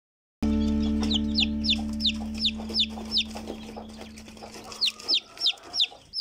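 Newly hatched chicken chick peeping: a run of high, falling peeps about three a second, a short pause, then a few more near the end. Under them a low steady hum fades away.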